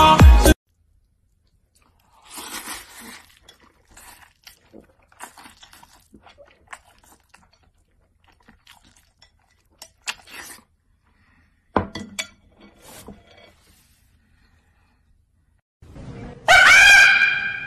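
Music cuts off about half a second in. Then comes a stretch of soft, scattered crunching and clicking sounds of someone eating with chopsticks. About a second and a half before the end, a loud rooster crow begins.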